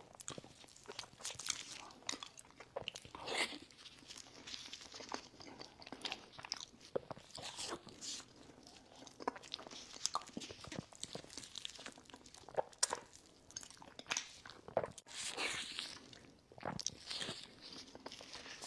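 Close-miked eating: a person biting and chewing crunchy food, with many irregular crisp crunches.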